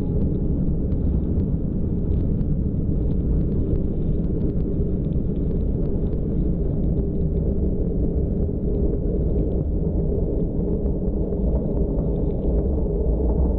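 Military jet aircraft engines at takeoff: a loud, steady low rumble that swells slightly near the end.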